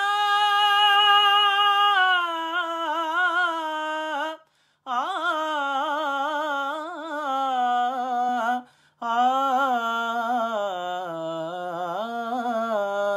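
A man's unaccompanied voice singing a wordless, melismatic opening to a devotional Urdu-Punjabi kalam, holding long wavering "aa" notes that step lower in pitch as it goes. It breaks twice for a breath, about four and a half seconds in and again about nine seconds in.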